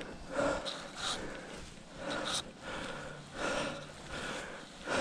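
A man breathing hard in short, heavy breaths about once a second: exertion from fighting a big hooked paddlefish on rod and reel.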